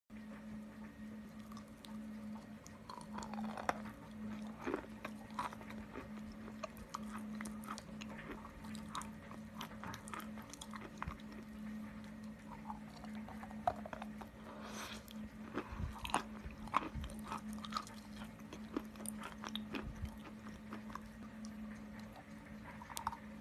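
Chalk and clay paste crunching and crackling, a steady stream of irregular small cracks and soft squishes, over a steady low hum.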